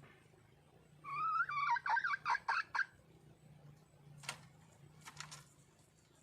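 Red junglefowl hen calling to attract a male: one rising note that breaks into about six quick notes. A sharp click follows, then a few fainter clicks.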